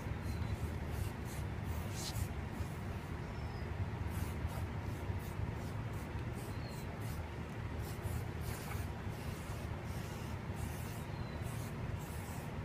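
Aerosol spray paint can hissing in many short bursts, with a longer burst about two seconds in, over a steady low rumble.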